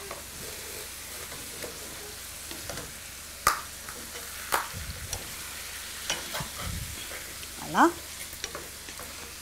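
Chicken pieces frying in oil in a pan, a steady sizzle, while a wooden spatula stirs them. A few sharp clicks and soft knocks come through in the middle.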